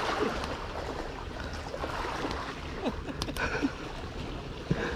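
Water washing against a rocky shore, a steady wash, with a few small clicks a little after halfway from handling the caught fish while it is being unhooked.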